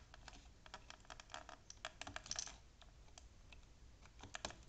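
Faint, irregular clicking and scratching of insulated wires being handled, twisted and fitted to a switch terminal by hand.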